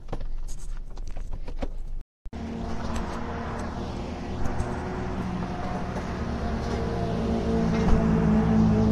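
A steady engine-like hum of a vehicle running, growing louder toward the end. A few clicks come in the first two seconds, and the sound cuts out completely for a moment about two seconds in.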